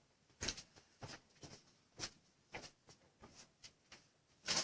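Faint scattered clicks and light knocks, about two a second, with silence between them.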